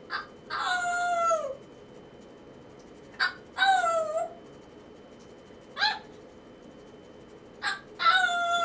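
African grey parrot calling: short sharp notes, three of them each followed by a longer drawn-out call, repeating every few seconds.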